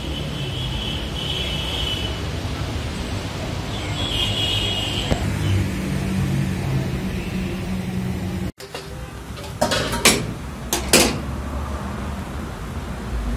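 Steady rumble of road traffic. After a sudden break about eight and a half seconds in, metal tongs clank sharply against a steel cooking pan three or four times.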